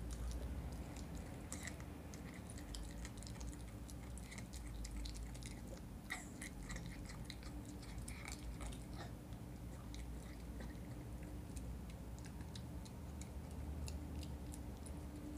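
Miniature schnauzer puppy chewing and gnawing a chicken drumstick: irregular wet clicks and small crunches, thick at first, thinning out for a few seconds past the middle, then picking up again.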